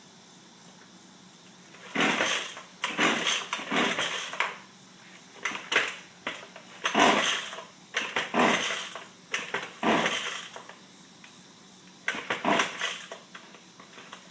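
Gas string trimmer being pull-started, about eight sharp yanks of the recoil starter rope, each a brief rasping burst, in irregular groups. The engine does not catch: the trimmer will not start.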